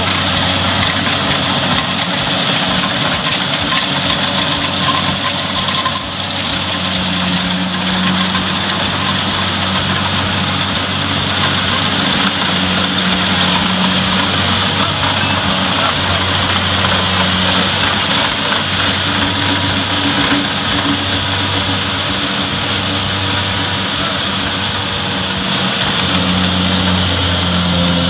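Rice combine harvester running steadily as it cuts and threshes rice: a constant engine hum under a dense mechanical noise.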